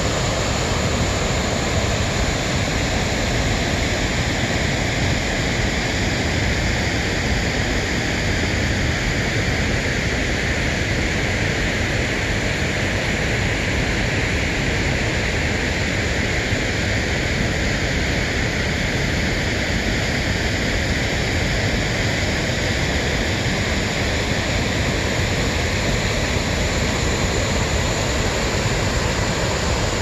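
Koštelski buk waterfall on the Una river, water pouring over a wide cascade of rock steps into the pool below: a loud, steady rush of falling water.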